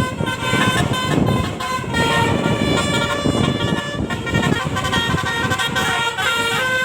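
Bus 'telolet' musical air horns playing rapid tunes, one note after another in quick succession, over the rumble of the buses' engines.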